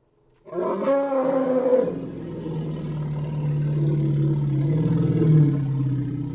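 A film creature roar sound effect. It opens with a higher-pitched call about half a second in, then drops after about a second and a half into a long, lower, steady roar with a deep rumble beneath, and stops abruptly near the end.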